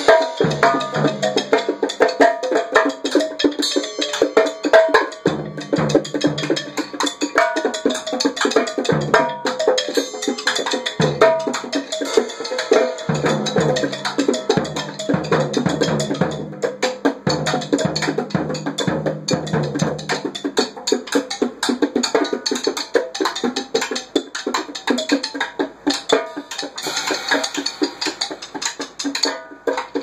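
Improvised percussion jam: a trap drum kit, goat-skin bongos and a gourdaphone playing together in dense, quick hits. Runs of low notes sound through the first two-thirds, then drop out, and the playing thins toward the end.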